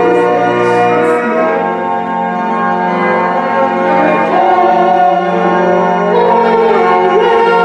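Slow instrumental music of long held chords, shifting to new chords a few times.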